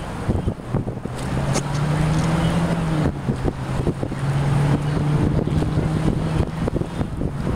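Small motorboat's engine running steadily as the boat moves along, a low even hum that settles in about a second in, with wind buffeting the microphone.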